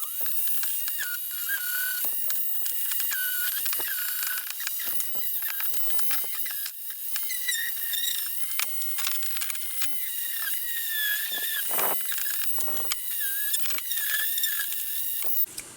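Aerosol spray can of primer hissing steadily as it is sprayed, with wavering high squeaky tones over the hiss. It cuts off abruptly near the end.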